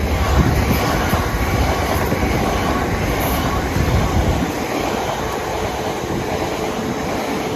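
Passenger train running through the station close by: a continuous rumble and rush of wheels on rail, with a thin steady whine in the second half.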